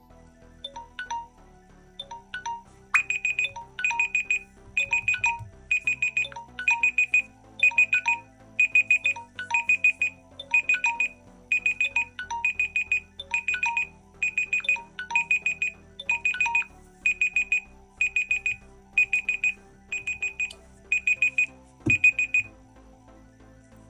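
Smartphone timer alarm going off: clusters of rapid high beeps, about three clusters every two seconds, over background music. It stops abruptly near the end.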